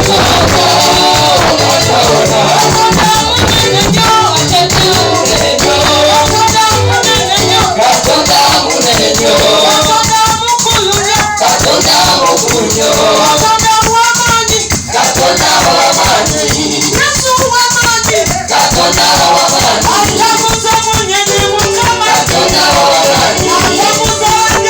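Loud live praise-and-worship music: voices singing a melody over busy percussion, with shakers keeping a fast, steady beat.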